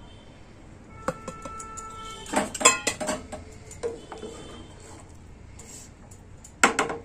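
Cookware knocks and clanks: a steel bowl strikes an aluminium cooking pot about a second in and rings briefly, then a wooden spatula knocks against the pot while stirring rice and vegetables in water, in two loud clusters of knocks, one near the middle and one near the end.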